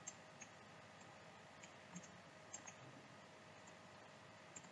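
Near silence, broken by a handful of faint computer mouse clicks at uneven intervals.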